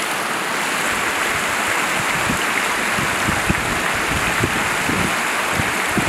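Steady rush of a rocky mountain stream cascading over boulders.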